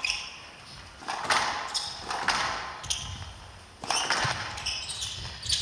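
Squash ball rally: the ball struck by rackets and hitting the court walls, a string of sharp hits about once a second.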